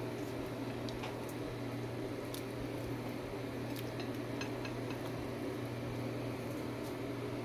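Chicken pieces parboiling in a pot of water: a steady simmering noise with scattered small ticks and pops over a constant low hum.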